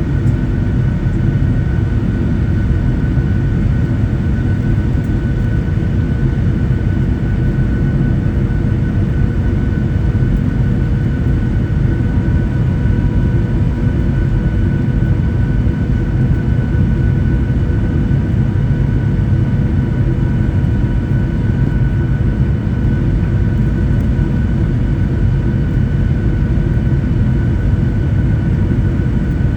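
Cabin noise of a Boeing 737-800 rolling on the ground just after landing, heard from inside: a steady low rumble with the thin whine of its CFM56 jet engines at low power. It holds even throughout.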